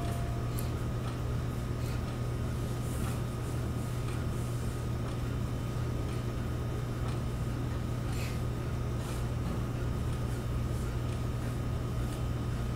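Steady low hum with a faint hiss behind it; nothing else sounds.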